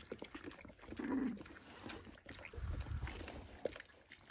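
Litter of 11-day-old Dalmatian puppies making short grunts and squeaks, with small clicks and knocks around them.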